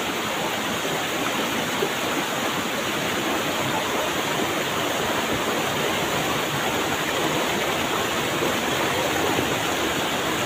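Small forest waterfall and the rocky stream below it: water rushing steadily.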